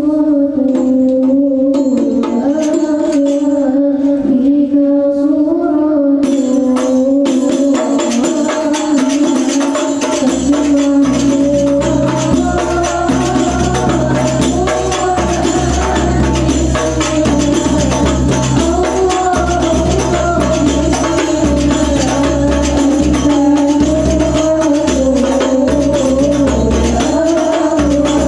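Young women singing an Arabic devotional syair into microphones over a PA, voices alone at first; rebana frame drums join about seven seconds in, and a deeper drum layer comes in around ten seconds.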